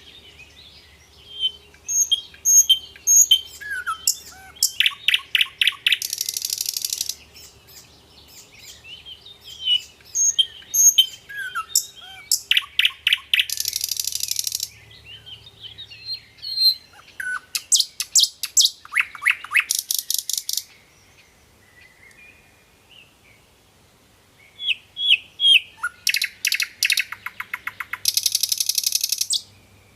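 Sikatan londo flycatcher singing loudly: bouts of high chirping notes, each running into a fast rapid-fire trill, four bouts in all with short pauses between.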